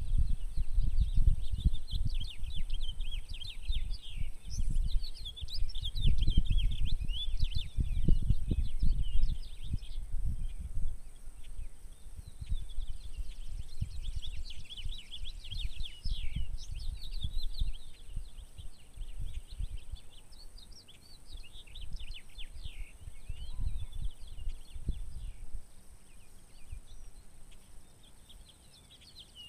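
Songbirds chirping and singing in a dawn chorus, many quick overlapping chirps, over the low rumble of wind gusting on the microphone that dies away near the end.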